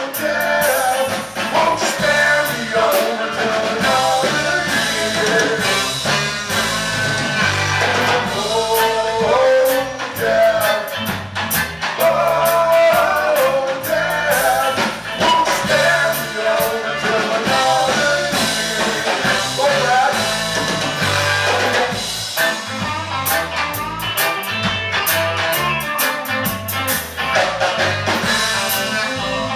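Live band music: fiddle and saxophone lines over electric guitar and drum kit, played loud and without a break.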